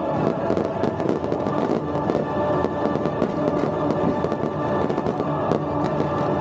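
Aerial fireworks bursting overhead in a rapid run of bangs and crackles, with music holding steady notes underneath.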